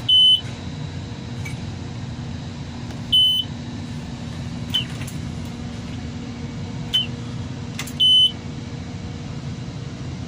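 Mercedes-Benz 1620 truck's diesel engine idling steadily. Three short, high electronic beeps sound over it, a few seconds apart.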